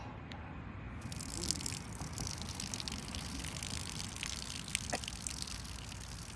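A steady stream of urine trickling and splashing, starting about a second in.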